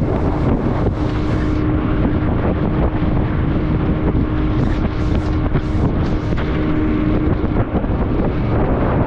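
Fishing boat's engine running under way, with heavy wind buffeting the microphone and a faint steady engine tone under the rush.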